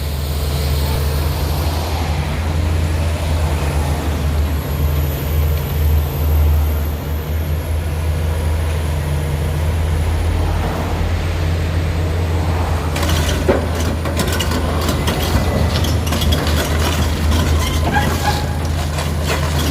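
Heavy diesel engine running with a steady low drone. From about two-thirds in, a run of rapid clattering metal knocks lies on top.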